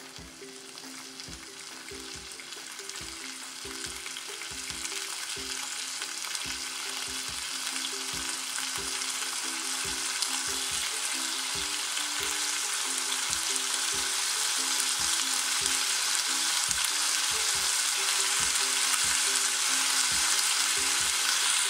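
Floured chicken thigh pieces sizzling in sesame oil in a nonstick frying pan over medium heat, searing skin-side down. The sizzle grows steadily louder as the pan heats up, over soft background music with a steady beat.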